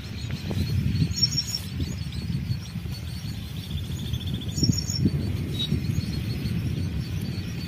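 Outdoor ambience: small birds chirping a few times, high and brief, over a low, uneven rumble.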